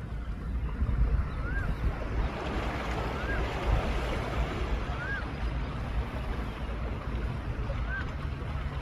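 Strong sea waves breaking on a beach, with wind buffeting the microphone; the surf swells up about three seconds in. A short rising-and-falling chirp repeats every couple of seconds.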